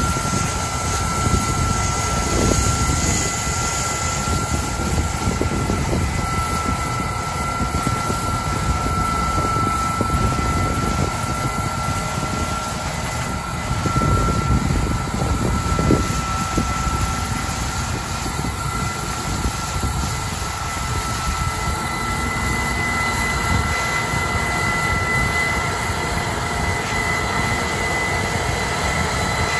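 A Case IH 8250 combine and a tracked tractor with its grain cart running together while the combine's auger unloads corn on the go: a steady deep diesel drone with a constant high whine through it. A second, higher whine grows stronger about two-thirds of the way through.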